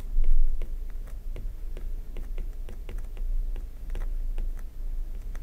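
Pen tip of a stylus tapping and scratching on a tablet screen during handwriting: irregular light clicks, a few a second, over a low steady hum.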